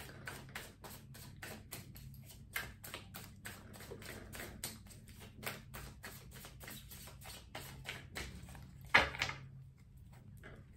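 Tarot deck being shuffled by hand: a steady patter of card clicks, about four or five a second, with a louder rustle about nine seconds in, after which the clicks grow fainter.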